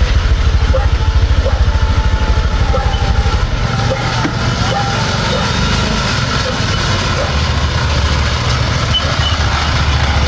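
Motorcycle engine of a Suzuki-drawn cargo trike running at low speed, with a fast low throb that eases into a steadier note about four seconds in.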